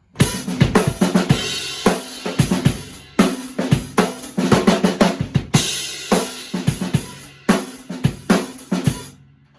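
Drum kit being played: kick, snare and cymbal hits in a steady beat, stopping shortly before the end.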